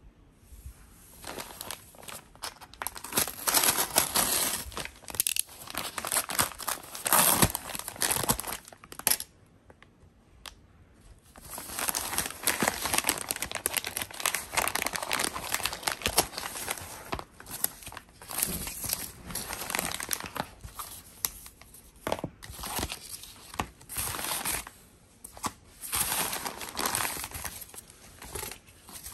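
Amazon paper mailer being torn open and crinkled by hand, in many uneven bursts of rustling and tearing with a lull about ten seconds in.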